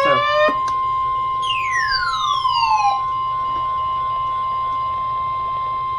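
NOAA Weather Radio warning alarm tone: a single steady electronic tone just above 1 kHz, the alert signal that comes before a warning message. It cuts off sharply at the end. About a second and a half in, a falling whistle-like glide sounds over it for about a second and a half.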